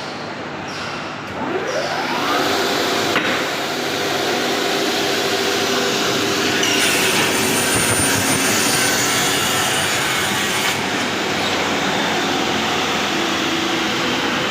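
Electric wood-cutting saw spinning up with a rising whine about a second and a half in, then running loud and steady.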